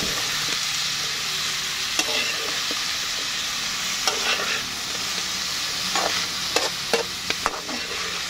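Green beans and pork stir-frying in a large metal wok, sizzling steadily, while a utensil stirs them, scraping and knocking against the pan several times, most often in the last few seconds.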